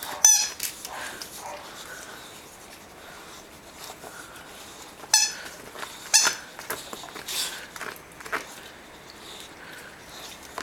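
Squeaky toy ball squeezed in play, giving several short, sharp squeaks: the loudest near the start and twice about halfway through, with fainter ones between.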